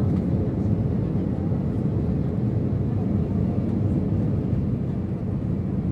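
Steady low rumble of a jet airliner's engines and rushing air, heard inside the passenger cabin during the final approach to landing.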